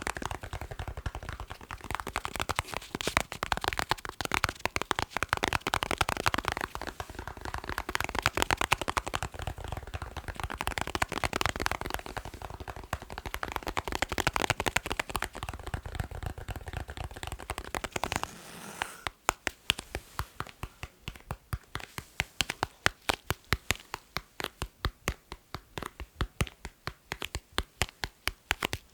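ASMR tapping: fast, dense tapping with a rumbly low end, then about 18 seconds in it switches to sparser, crisper single taps, a few a second.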